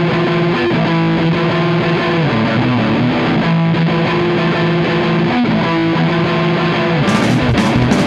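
Noise rock played live: distorted electric guitar holding long sustained notes, with the band's fuller, brighter sound coming back in near the end.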